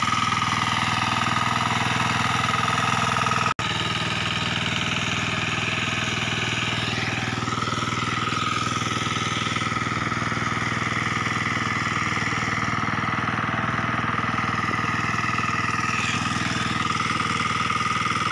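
Hand tractor (kuliglig) engine running steadily as the machine works a muddy, flooded rice paddy.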